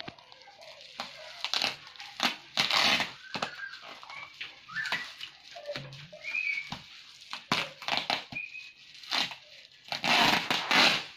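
Plastic bubble wrap crinkling and rustling in irregular bursts as it is pulled and torn open by hand, with the loudest, longest burst about ten seconds in.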